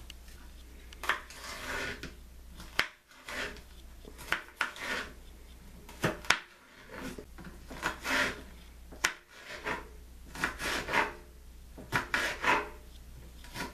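Kitchen knife chopping bell peppers on a cutting board: irregular knocks of the blade hitting the board, mixed with short scrapes.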